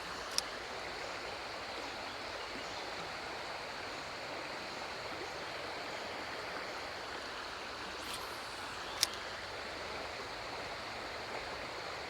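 Creek water rushing steadily over a riffle. Two sharp clicks stand out, one just after the start and one about nine seconds in.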